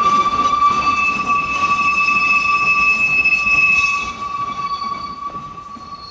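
A narrow-gauge train running, with a steady high-pitched tone sounding throughout. A second, higher tone stops about four seconds in, and the sound then grows quieter.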